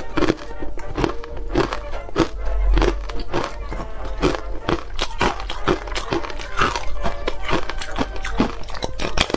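Ice being bitten and chewed close to a clip-on microphone: a rapid run of crisp crunches, about two or three a second.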